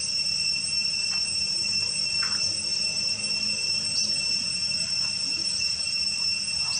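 Insects droning steadily with a constant high-pitched buzz, with a few short faint sounds over it.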